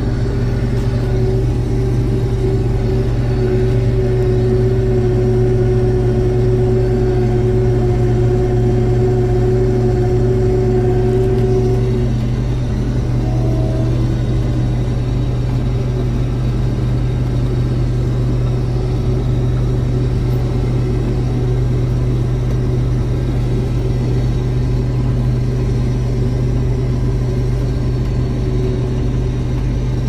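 Combine harvester running, heard from inside its cab: a steady low engine hum, with a higher whine over it that stops about twelve seconds in.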